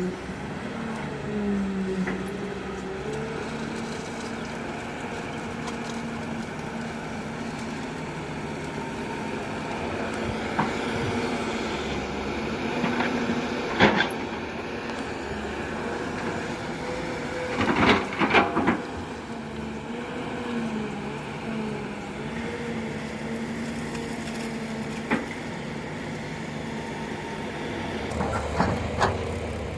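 Hyundai Robex 210-7 excavator's diesel engine running steadily, its pitch dipping and rising as the hydraulics take load. Loud metal knocks and clanks from the bucket come through over it: one about halfway through, a cluster a few seconds later, and several more near the end.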